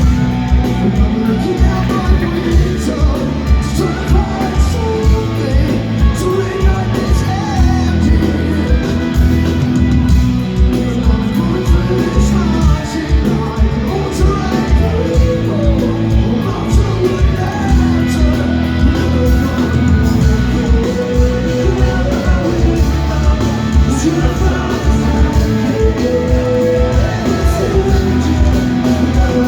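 Rock band playing live: electric guitars, bass and drums with sung vocals, at a steady driving beat.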